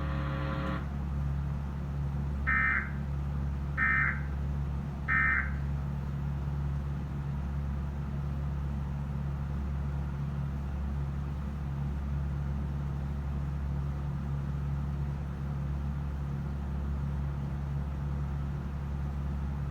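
Three short bursts of Emergency Alert System end-of-message data tones, a harsh warbling buzz, evenly spaced about a second and a half apart, signalling the end of the alert. A steady low hum continues throughout.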